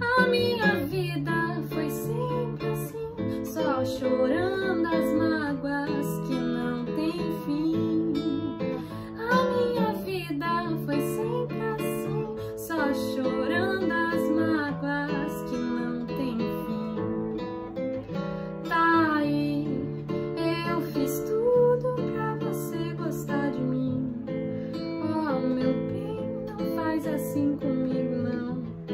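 Nylon-string classical guitar accompanying a woman's singing voice.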